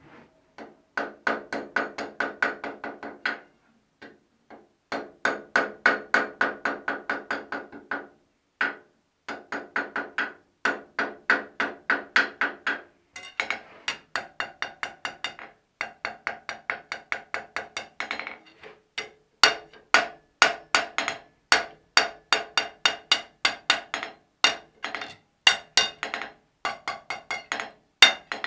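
Blacksmith's hand hammer striking red-hot iron on the horn of an anvil, forging a strap hinge: quick runs of blows, about four a second, each with a bright anvil ring, broken by short pauses.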